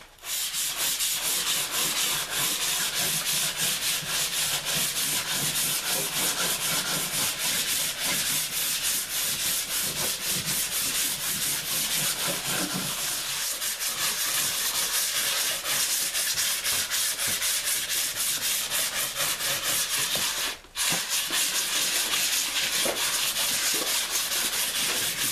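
Hand dry-sanding of cured filler on a canvas canoe hull with a sanding sponge: a steady scrubbing rasp of quick back-and-forth strokes, broken by one short pause about twenty seconds in.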